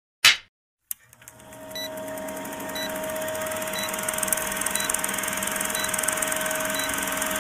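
A brief loud burst of noise, then an old film projector sound effect: a steady rapid mechanical rattle with a hum, and a faint tick once a second as the film countdown runs.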